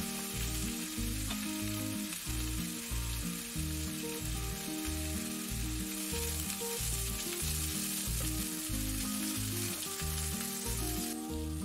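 Lamb cutlets and onions sizzling in hot oil in a frying pan as the cutlets are turned onto their sides with tongs; the sizzle drops off abruptly near the end. Background music with a steady, repeating bass line plays underneath.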